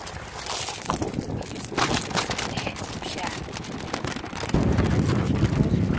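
Crinkling and clicking from handling small plastic packets of rhinestones, then wind buffeting the microphone with a low rumble that sets in suddenly about four and a half seconds in.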